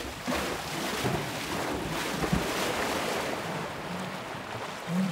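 A racehorse splashing down the entry ramp into an equine swimming pool and swimming, water churning and sloshing steadily around it, with a few dull thumps.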